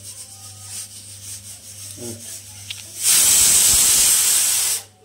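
Faint rubbing of a hand working salt into marinating chicken, then about three seconds in a loud steady hiss that lasts nearly two seconds and cuts off suddenly.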